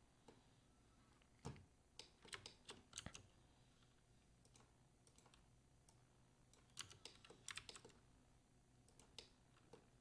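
Faint keystrokes on a computer keyboard, a few short clusters of quick taps with pauses between them.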